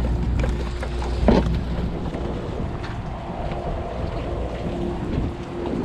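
A sportfishing boat's engine humming steadily under wind buffeting the microphone.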